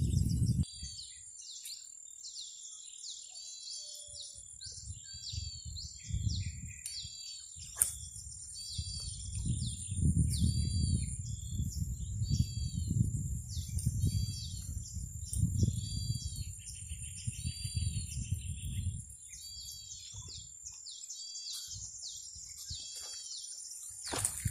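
A bird calling repeatedly, one short high call about once a second, over a steady high-pitched whine. Wind rumbles on the microphone through the middle stretch.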